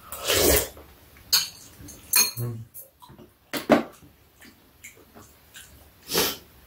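Metal spoons and chopsticks clicking against bowls during a meal, a few separate clinks. Short slurping sounds of soup being eaten come at the start and again near the end.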